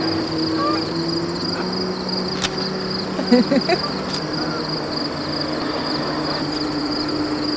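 Field insects trilling steadily over the low, even hum of a distant motor. A few short, louder chirps sound about three and a half seconds in.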